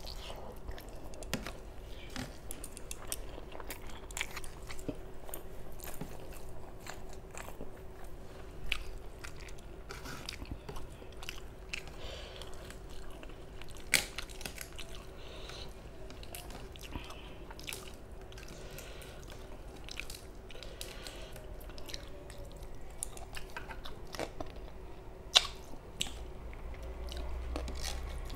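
Close-miked chewing and wet mouth clicks of a person eating rice and curry with her hand, with occasional crunches. Two sharper clicks stand out, about halfway through and near the end. A faint steady hum sits underneath.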